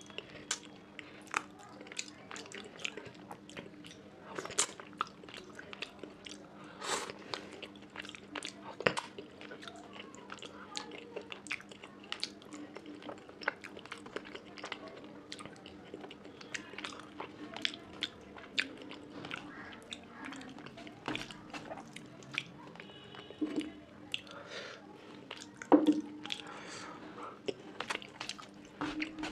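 Close-miked eating sounds: wet chewing, lip smacks and mouth clicks as a mouthful of fish curry and rice is eaten, irregular and continuous. A steady low hum runs underneath.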